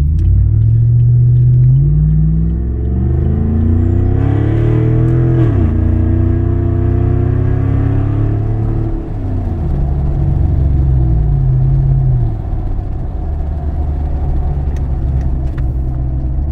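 Chevrolet pickup's engine through a true dual exhaust with Carven R-series mufflers and turn-down dumps, heard inside the cab, which is really loud. It accelerates hard from a stop: the exhaust note climbs, drops at a gear change about five seconds in, climbs again, eases off as the throttle lifts around nine seconds in, then settles into a steady cruising drone.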